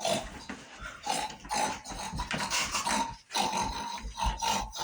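A chicken making rough, grunting calls that sound like a pig oinking, about two or three a second.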